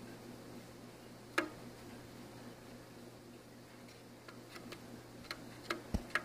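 Light clicks and taps of a pigeon's feet and beak on a wooden tabletop: one sharp tap about a second and a half in, then a run of quicker clicks near the end as it walks, one with a low thump.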